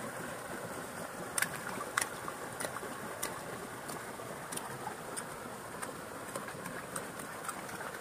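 Steady rush of running water, with a few faint sharp clicks or small splashes scattered through it.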